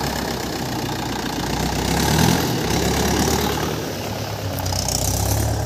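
Tractor's diesel engine idling steadily.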